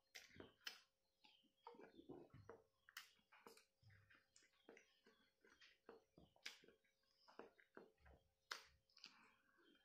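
Faint, irregular wet mouth sounds of someone chewing and gulping hard-boiled eggs fast, several smacks and clicks a second, over a faint steady hum.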